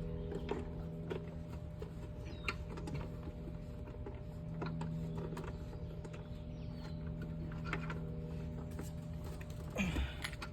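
Scattered light clicks and taps of tools and engine parts being handled, over a steady low hum.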